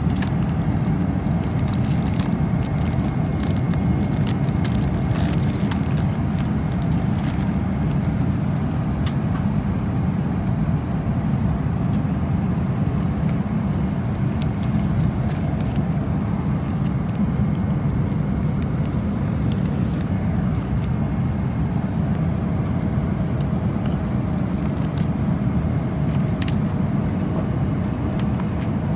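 Steady, loud cabin drone inside a Boeing 747-400 airliner, with scattered faint clicks and rustles of paper and magazine pages being handled and turned.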